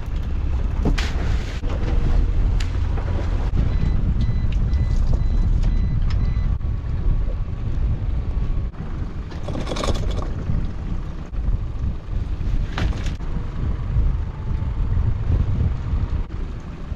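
Steady low rumble of wind on the microphone over a small fishing boat's running outboard, with about four sharp knocks from crab pots being handled on deck.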